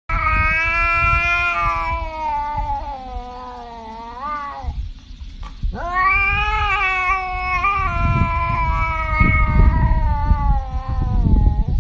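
A domestic cat yowling in two long, drawn-out howls. The first bends upward in pitch at its end, about five seconds in, and the second follows a second later and falls away near the end. A low rumbling noise runs underneath.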